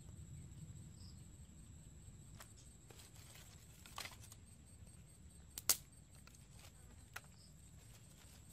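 Faint taps and clicks of wooden sticks and a bamboo skewer being handled and set in place, a few scattered knocks with the sharpest a little past halfway, over a low steady rumble.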